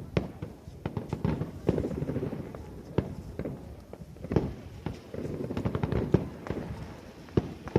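Aerial fireworks shells bursting in quick, irregular succession: sharp bangs and crackles over a low rumble of explosions echoing.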